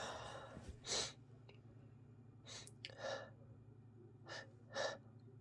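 A person with a congested head cold breathing heavily and sighing during a sneezing fit. There is a strong breath about a second in, then two pairs of shorter breaths in and out.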